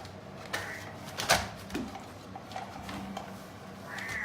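Battery-powered concealed-motion cat toy running with a steady low motor hum, with a few sharp clicks and knocks over it, the loudest about a second and a half in.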